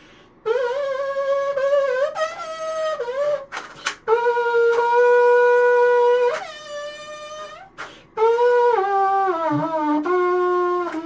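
A 3D-printed plastic rectangular trumpet playing a tune in short phrases: a few notes, a long held note in the middle, then a run of falling notes near the end, with brief pauses for breath between phrases.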